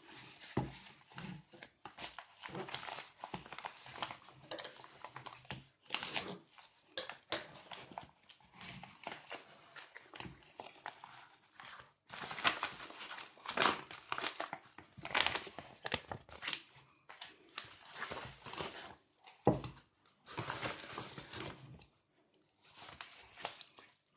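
Packaging being handled and opened: irregular crinkling and rustling, with sharper tearing-like bursts, stopping briefly now and then.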